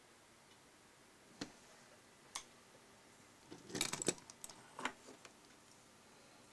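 A few sharp clicks and light knocks: single clicks about a second and a half and two and a half seconds in, then a short burst of clattering around four seconds in, and one or two more clicks about five seconds in.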